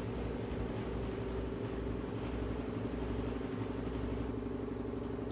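Steady mechanical hum made of several low, held tones at an even level.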